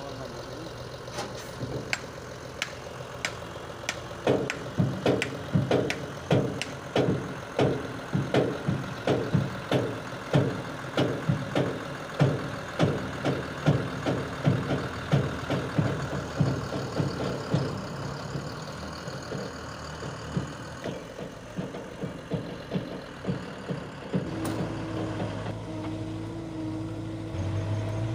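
Tipper truck's diesel engine running with its bed raised for tipping, under a loud, very regular knocking about twice a second that fades out about two-thirds of the way through. Near the end a steady low hum takes over.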